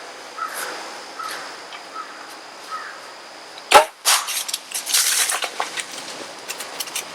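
A bow shot at a whitetail buck: the sharp, loud crack of the string's release and arrow about halfway through, followed by a rapid crackling rush of the deer bolting through dry leaves and brush, fading toward the end.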